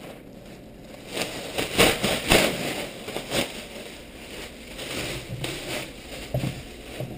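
Plastic trash-can liner rustling and crinkling as it is handled. It comes in several bursts, loudest about two seconds in, with quieter rustles near the end.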